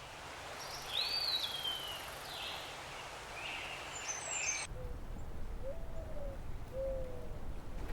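Wild birds calling in a forest: high whistled calls, one slurring down in pitch about a second in, then after an abrupt cut two low calls that rise and fall, over a low rumble.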